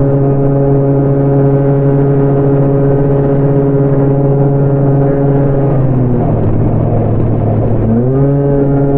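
A truck running nearby with a loud, steady droning hum. About six seconds in, the hum sags and breaks into a rushing noise for a couple of seconds, then climbs back to the same steady pitch.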